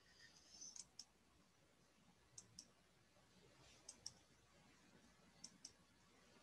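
Near silence with faint sharp clicks in pairs, four pairs at an even pace of about one pair every one and a half seconds.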